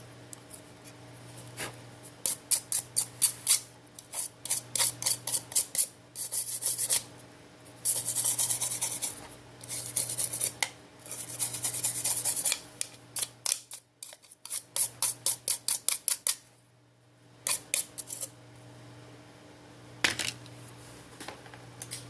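A hand tool scraping leftover glass and adhesive off a smartphone's frame: quick back-and-forth strokes, several a second, in bursts with short pauses between them.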